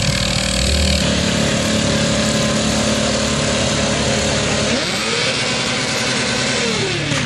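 1984 Chevy one-ton pickup's engine running hard under load as the truck churns through a mud pit, the revs rising and falling twice in the second half.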